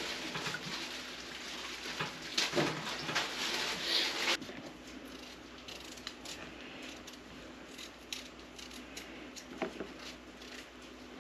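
Liquid marinade poured from a bottle onto raw steaks in a pan, splashing and pattering, stopping abruptly about four seconds in. Then faint scraping and clicking of a paring knife peeling potatoes.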